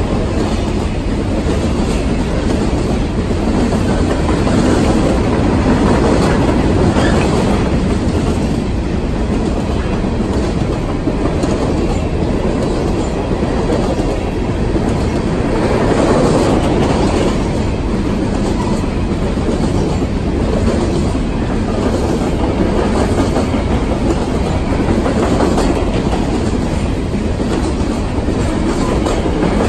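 Covered grain hopper cars of a long Union Pacific freight train rolling past close by: steel wheels running on the rails in a steady, loud rumble with faint repeated clicking.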